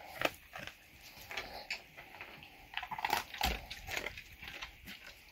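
A dog chewing its food off the floor: faint, irregular crunches and clicks.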